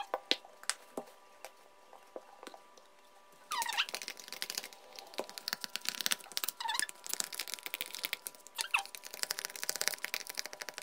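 A few light clicks and taps, then from about three and a half seconds in, repeated crackling, sputtering bursts a couple of seconds long each, from slime ingredients (glue, shaving foam) being handled in a bowl.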